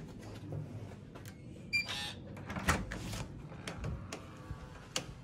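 Hotel room key-card door lock giving a short electronic beep about two seconds in, followed by the latch and handle clicking and the door knocking as it is opened.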